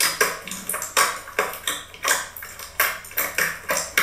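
Thick purple slime being pressed and poked with fingers in a glass bowl, giving a quick run of sharp clicking pops, about four a second.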